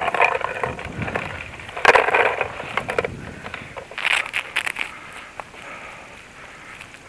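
Close rustling and scraping of clothing and paintball gear against the microphone, mixed with crunching footsteps on dry grass and leaves, in irregular bursts loudest about 2 s and 4 s in.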